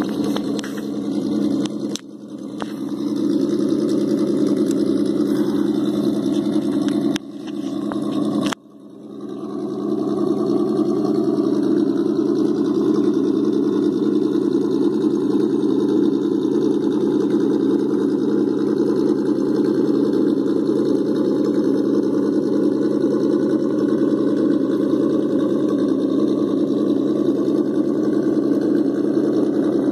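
Steady engine-like hum from a Traxxas TRX-4 Defender RC crawler, dropping out briefly about two, seven and eight and a half seconds in.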